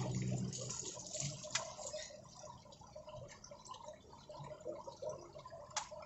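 Water dripping and splashing faintly, with two sharp clicks, one about a second and a half in and one near the end.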